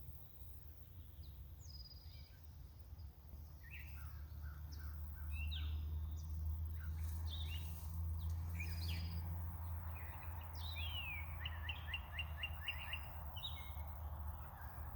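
Songbirds chirping and singing in short whistled phrases, with a quick run of repeated notes near the end. A steady low rumble runs underneath, louder from about a third of the way in.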